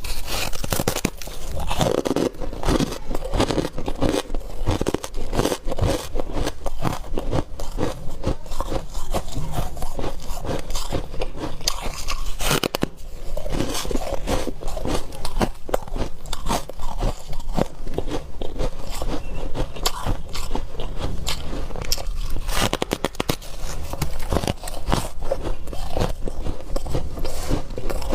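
A person biting and chewing chunks of freezer frost ice, with a dense, irregular run of crunches.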